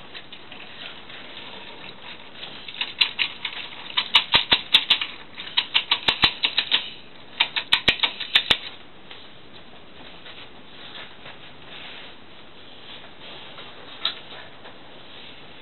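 Toy train pushed along a wooden window ledge, its wheels and cars clattering in runs of quick sharp clicks, several a second, for about five seconds starting a few seconds in, with one more click near the end.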